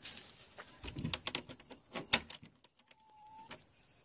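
A quick run of light clicks and knocks from hands handling the wooden nest box and its door, the sharpest about two seconds in, then a short high squeak about three seconds in.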